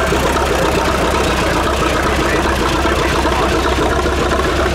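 Engine of an early steel-wheeled antique tractor running steadily at low speed as it is driven past.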